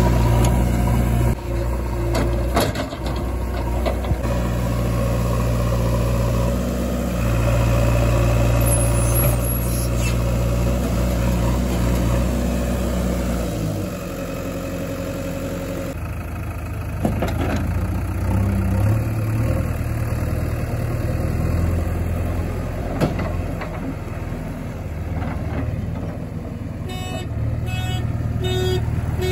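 Diesel engines of a JCB backhoe loader and a Tata 2518 tipper truck running steadily, with a few knocks; the engine note drops about halfway through. Near the end a rapid, evenly repeated beep starts.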